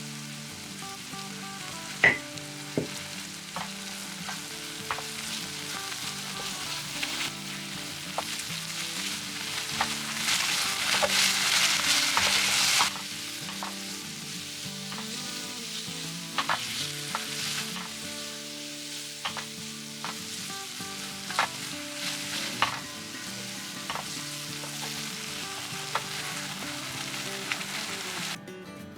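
Food sizzling in hot oil in a frying pan while it is stirred, with a utensil clicking and tapping against the pan. There is a sharp click about two seconds in, and the sizzle swells louder for a few seconds midway.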